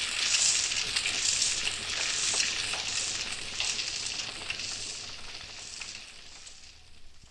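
Sound effect of a fire crackling and hissing, swelling and easing about once a second, played from a vinyl record; it fades out near the end.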